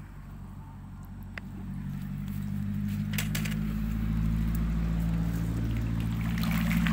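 A low, steady motor hum that grows louder over the first few seconds and then holds, with a few faint clicks around the middle.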